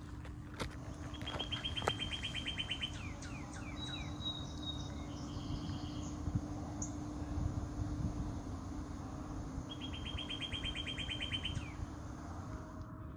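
A songbird singing a fast, even trill twice, about eight seconds apart, with a few short high notes and a brief whistle in between, over a low steady rumble.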